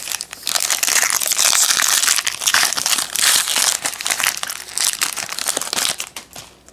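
Foil trading-card pack wrappers crinkling as hands handle them and open one, a dense crackle that stops shortly before the end.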